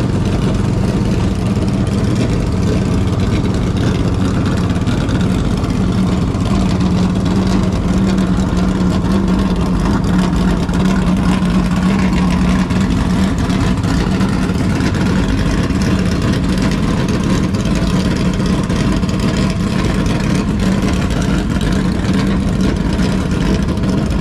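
Vehicle engine running steadily at a constant low speed, a loud even drone with no revving.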